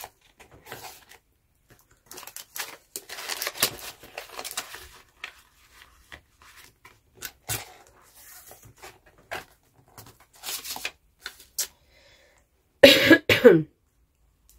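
Paper banknotes and plastic binder sleeves rustling and crinkling as cash is handled and slipped into envelope pockets, with light clicks and taps, heaviest a couple of seconds in. Near the end, a brief loud cough.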